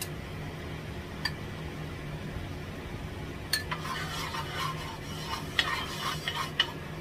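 Wooden spatula scraping and knocking around a nonstick wok, stirring from about halfway through with several sharp taps against the pan. Before that there are a couple of single light knocks, over a faint steady low hum.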